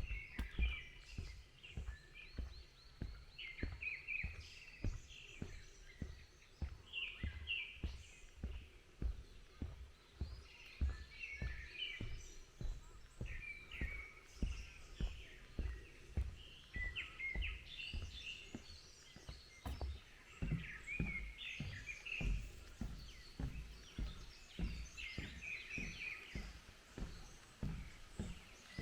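Songbirds chirping and calling in the woods, many short phrases overlapping, over steady walking footsteps on a forest path, about one and a half steps a second.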